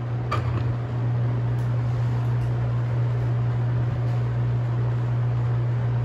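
Vintage Edison box fan running on low speed: a steady electric-motor hum with the rush of the blades. A single sharp click comes about a third of a second in.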